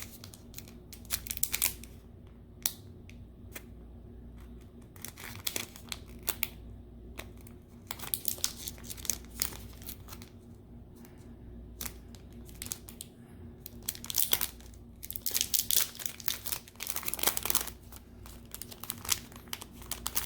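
Small plastic packet holding a replacement charging port being handled, crinkling and rustling in irregular bursts as someone tries to tear it open; the rustling comes thicker and louder in a flurry near the end.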